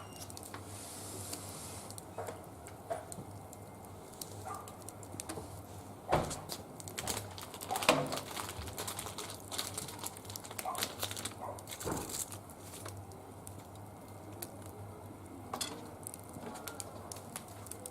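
Wood fire burning in a barbecue grill, crackling with irregular small pops and snaps; sharper pops about six, eight and twelve seconds in.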